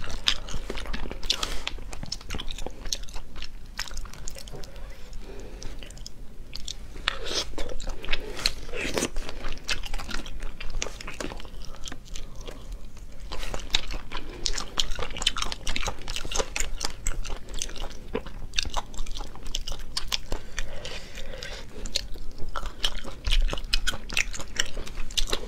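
Close-miked chewing and wet mouth sounds of someone eating sea snail meat, with many small irregular clicks and smacks throughout, and snail shells clicking as the meat is picked out with a toothpick.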